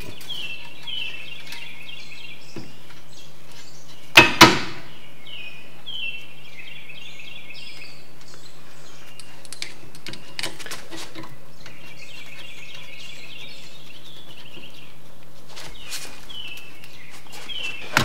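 Light metal handling of the rear brake caliper: a sharp double clank about four seconds in and a few light clicks later. Birds chirp in repeated short trills behind it over a steady low hum.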